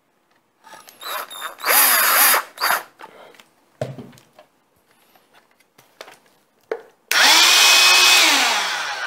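A Black & Decker cordless drill-driver whirs in short bursts, driving screws into a plastic cordless hand vacuum. About seven seconds in, the repaired Silvercrest cordless hand vacuum's motor is switched on: its whine rises to a steady high pitch and runs loud, now powered by its replacement lithium battery pack, then the pitch falls near the end.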